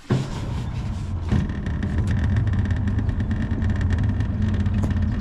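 Boat's outboard motor starting up and running steadily, its steady hum picking up after about a second as the boat is moved.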